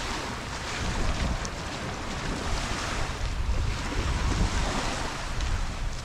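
Gulf of Mexico surf washing onto the beach in repeated swells, with wind rumbling on the microphone.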